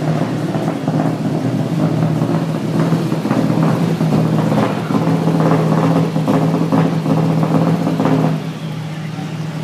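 Rally car engine running at high, fairly steady revs, its level dropping a little over eight seconds in.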